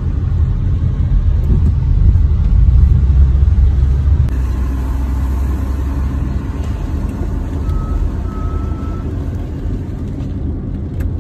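Car driving: a steady low rumble of engine and road noise, loudest a few seconds in, then easing off.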